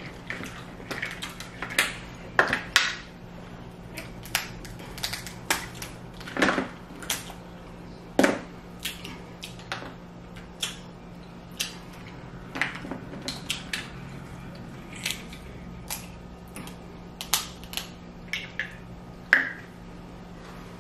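Snow crab legs being cracked and pulled apart by hand at close range: a long run of sharp, irregular shell cracks and clicks, some followed by short wet eating sounds, over a faint steady hum.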